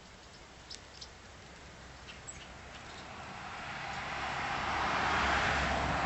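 A vehicle passing by: its noise builds steadily over a few seconds and peaks near the end. A few short bird chirps come in the first couple of seconds, before it.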